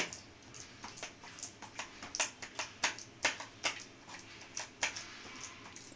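Soft, oily dough being kneaded and pressed by hand in a steel plate: irregular wet clicks and squelches, a few a second.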